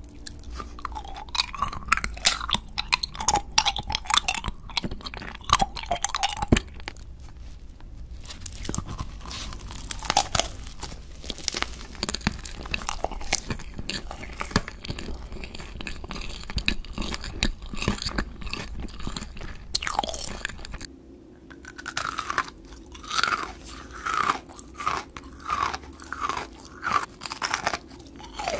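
Close-miked ASMR eating of candies: a person biting and chewing, with repeated crisp crunches. After a short dip in level about three-quarters of the way through, the crunching settles into regular bites about once a second.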